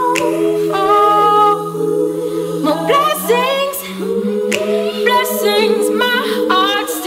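Recorded soul song: a woman's layered a cappella vocal harmonies sung over a long held low note, with a few short sharp accents.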